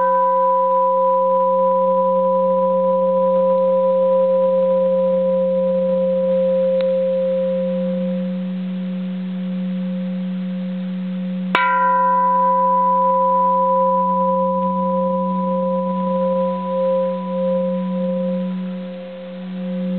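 Old, uncracked bronze Japanese Buddhist temple bell ringing on after a strike with a plastic hammer: a long, sustained hum with a low tone and higher overtones. It is struck again about halfway through, and the ring starts to waver in the last few seconds.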